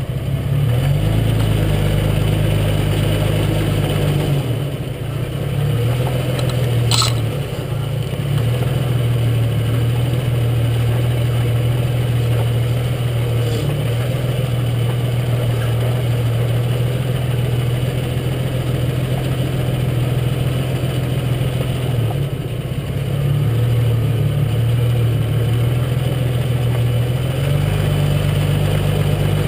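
Jeep Cherokee XJ's engine running steadily as it crawls off-road, heard from under the chassis beside the front axle. The engine note shifts a few times, and there is a single sharp knock about seven seconds in.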